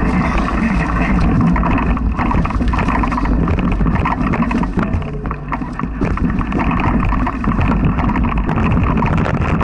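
Mountain bike rolling over a leaf-covered dirt trail, picked up through a bike-mounted action camera: a loud, continuous rumble with frequent knocks and rattles as the bike jolts over bumps and roots.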